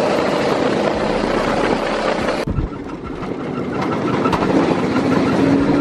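Go-kart engine running as the kart is driven around the track. The sound drops abruptly about two and a half seconds in, then builds back up.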